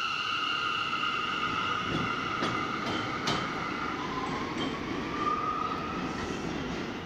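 New York City subway train pulling out and moving away along the track: a steady high whine with a few sharp clicks from the wheels and rails, and a tone rising in pitch about four seconds in as it picks up speed.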